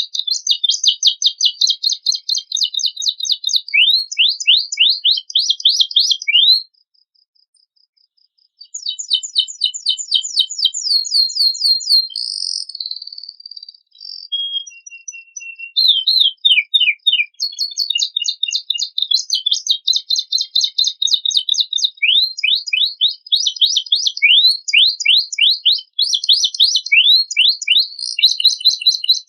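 Domestic canary singing a long, fast song of rapid trills and quickly repeated downward-sweeping notes, a canary with a rich borrowed repertoire. The song breaks off for about two seconds, starting around seven seconds in, then resumes.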